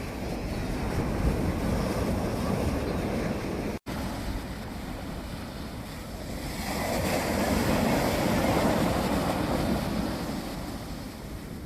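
Sea waves breaking and washing on the shore, with a surge that builds about halfway through and eases off near the end, and wind rumbling on the microphone. The sound drops out for an instant about four seconds in.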